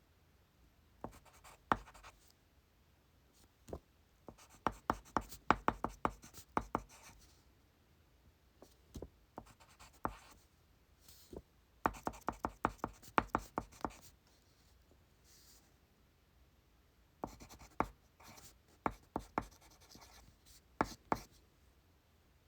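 Pencil writing on paper at a desk: quick strokes and taps that come in several bursts of a second or two, with short pauses between them.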